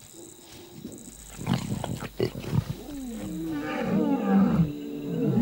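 Male lion roaring: a series of repeated calls, each rising then falling in pitch. It starts about halfway through and grows louder toward the end.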